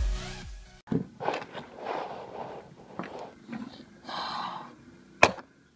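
Electronic dance music cuts off under a second in. Then come soft handling noises from plastic toys being moved about by hand: rustles, scrapes and light taps, with one sharp click near the end.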